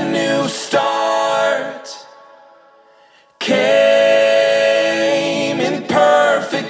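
Soundtrack song with a singing voice holding long notes over music. It fades out about two seconds in, stays nearly silent for over a second, then comes back suddenly.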